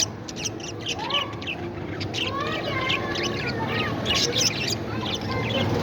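Many parrots chirping and whistling together in quick, overlapping calls, with short upward-sliding whistles among them.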